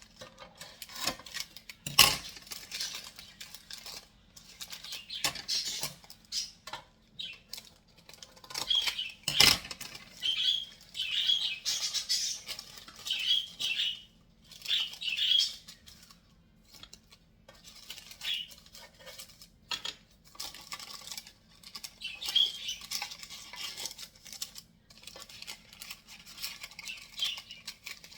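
Kitchen utensils and dishes clinking and knocking, with irregular sharp knocks (the loudest about two seconds in and again near nine and a half seconds) and short bouts of scraping or rustling in between.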